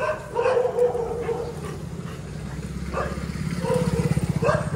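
Dogs barking: a few short barks and one drawn-out bark-howl near the start, over a low, rapidly pulsing rumble that grows louder toward the end.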